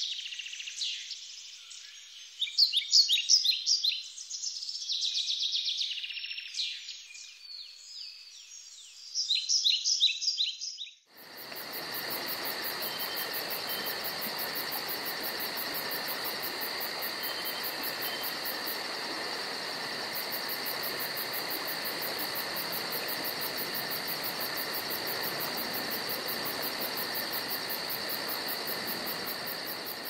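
Songbird chirps, many quick falling notes in bursts, that cut off suddenly about eleven seconds in. A steady chorus of insects follows: an even hiss with held high tones and a fast, regular pulse.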